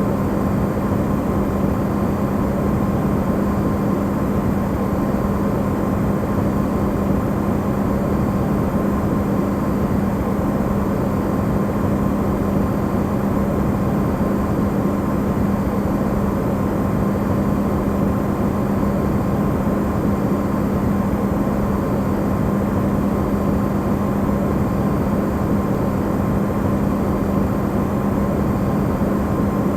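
Amplified recording of an Electrolux refrigerator running: a steady, unchanging hum with a strong low drone, under an even rushing noise.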